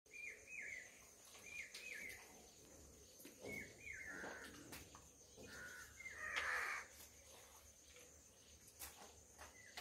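Crows cawing over and over: short falling calls, mostly in pairs, with one louder, harsher call about six seconds in. A few faint sharp clicks are heard as well.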